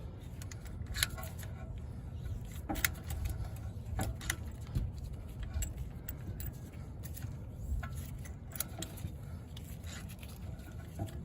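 Irregular metallic clicks and light scraping from a brake caliper piston reset tool being turned by hand to screw the rear caliper piston back in. A steady low rumble runs underneath.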